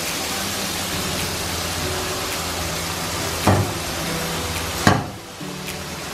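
Hot oil sizzling in a frying pan as beaten eggs go in over fried onions and mushrooms, with two sharp knocks about three and a half and five seconds in. The sizzle drops off suddenly just after the second knock.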